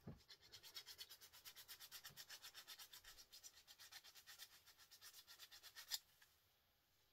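Small hand file rasping back and forth on a small scrap metal part in fast, even strokes, about six a second, scraping through the surface to test whether it is brass or gold. Faint throughout, ending with a sharp click about six seconds in.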